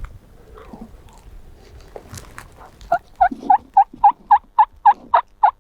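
Turkey yelping: a long run of about a dozen evenly spaced yelps, three or four a second, starting about three seconds in after faint rustling.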